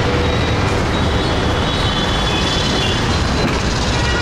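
Wind and road noise of an open electric rickshaw riding through city traffic: a steady rushing with a heavy low rumble and faint high tones that come and go.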